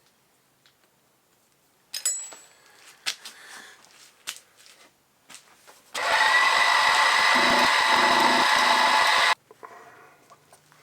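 A few light clicks and knocks of metal tools being handled, then an electric power tool motor starts at full speed, runs steadily and loudly for about three seconds, and stops abruptly.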